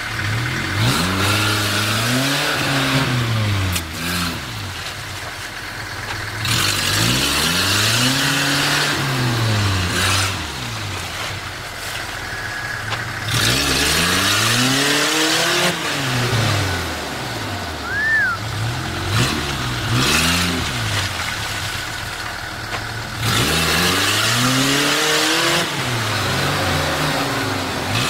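Off-road vehicle engine revving up and dropping back about five times, with a rushing noise swelling at each rise. A brief high chirp comes about two-thirds of the way through.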